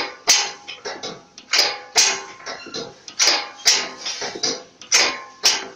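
Tandem-axle trailer leaf-spring suspension being worked up and down, clanking in pairs of sharp metal knocks about every second and a half, with a short metallic ring after each.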